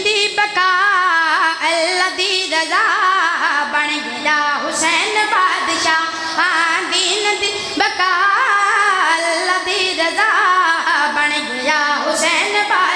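A male zakir's solo voice singing Punjabi devotional verse in a high, ornamented melody, the pitch wavering and sliding within each phrase.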